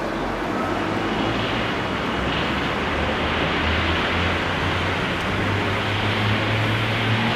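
Steady rumble and hiss of a train-station platform, with a low mechanical hum that rises slightly in pitch over the last few seconds.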